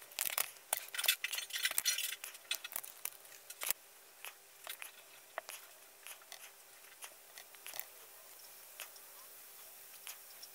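Small clicks, snips and crackles of hand tools and fingers cutting and stripping the outer sheath of a thin multi-wire FPV camera cable. The clicks are dense over the first four seconds, then thin out to scattered ticks.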